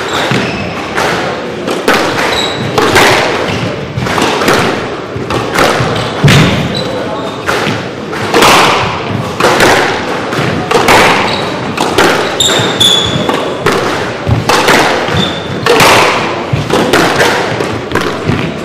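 Squash rally: the ball is struck by rackets and hits the walls in a steady string of sharp hits about once a second, each echoing in the hall, with sports shoes squeaking on the wooden court floor.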